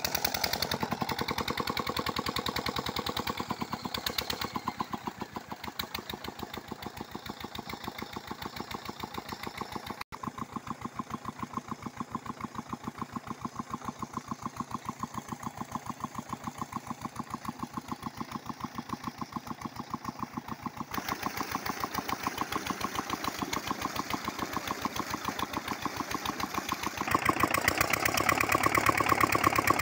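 Old Petter-type diesel engine running steadily with an even, fast exhaust beat while it drives a water pump by belt. It is louder near the end.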